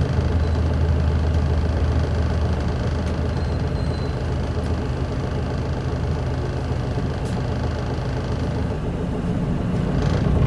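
Isuzu Erga city bus's diesel engine running, heard from inside the passenger cabin as a steady low hum. It grows louder near the end.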